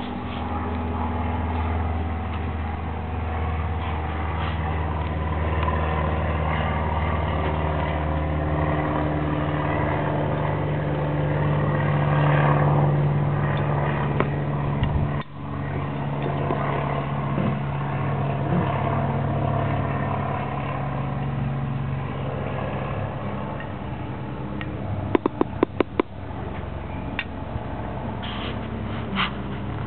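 A steady low engine hum whose pitch shifts slowly, dipping out for a moment about halfway through. A quick run of sharp clicks comes near the end.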